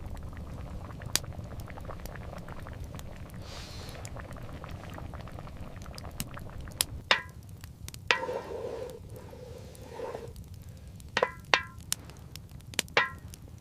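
Steady low rumble with several sharp, ringing clinks, like small metal or glass knocks, spread through the second half, and a short held tone in between.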